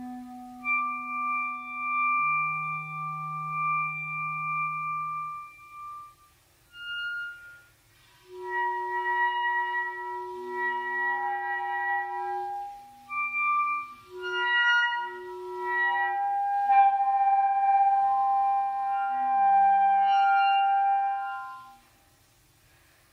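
Two clarinets, a B♭ and an A, playing a contemporary duet in long held notes that overlap and shift in pitch. Twice the music breaks off briefly, and it stops about a second before the end.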